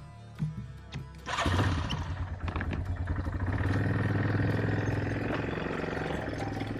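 Two short knocks, then a small two-stroke chainsaw engine starts about a second and a half in and runs steadily.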